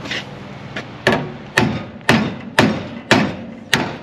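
Hammer blows on the steel radiator core support of a 1964 Ford Falcon, knocking the section in about half an inch to line it up with the fender. Six sharp strikes about half a second apart, starting about a second in, each with a short metallic ring.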